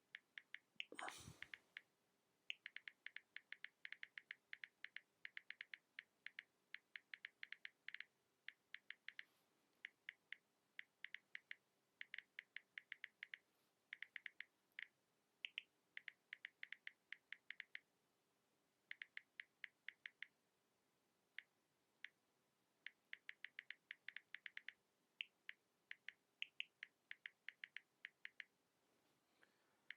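Phone keyboard typing clicks: short, sharp taps in quick runs of several per second, broken by brief pauses like a message being typed. A short sweeping noise sounds about a second in.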